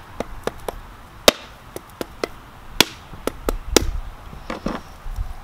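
Vietnamese bush knife striking a whole coconut again and again to crack its shell open: a string of sharp knocks, three louder blows among lighter taps.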